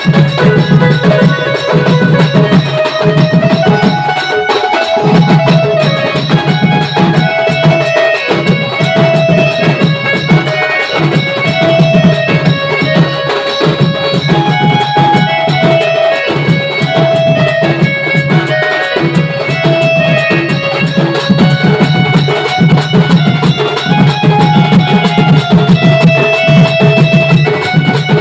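Instrumental Sambalpuri band music: drums keep a steady rhythm under a lilting melody line.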